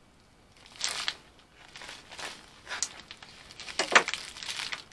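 Plastic poly mailer being opened, crinkling and rustling in several short bursts, the loudest about four seconds in.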